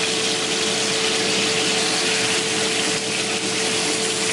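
Beef steaks sizzling in hot oil in a frying pan: a steady, even sizzle.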